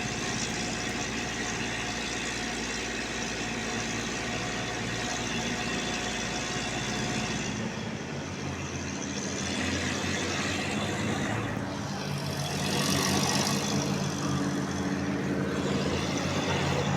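A steady engine hum, its pitch shifting about halfway through and growing louder toward the end.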